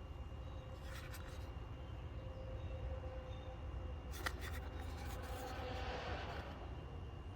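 Small hand tools being handled and turned over: a few light clicks of metal against metal, and some faint rubbing and scraping about five to six seconds in, over a steady low hum.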